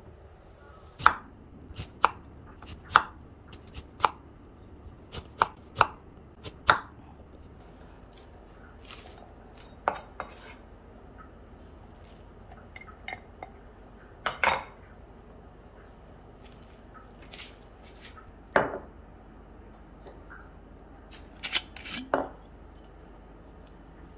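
Knife chopping lemons on a cutting board: sharp knocks about once a second for the first several seconds, then a few more spaced-out knocks.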